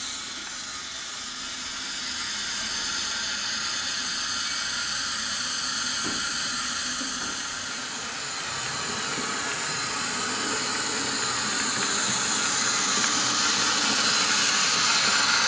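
Steam hiss from the sound decoder of a Bachmann OO gauge H2 Atlantic model steam locomotive, played through its small loudspeaker as the model train runs. The hiss is steady and grows louder toward the end.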